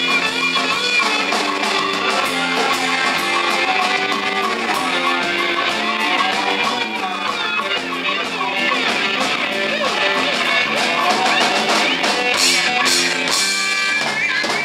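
Live rock band playing, with an electric guitar carrying the lead line, its notes bending in pitch, over drums, bass and rhythm guitar.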